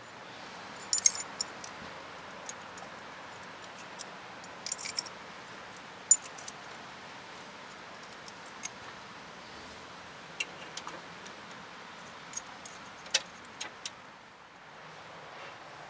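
Irregular metallic clinks and clicks of small hand tools and metal parts being handled, over a steady background hiss. The loudest clinks come about a second in, near six seconds and near thirteen seconds.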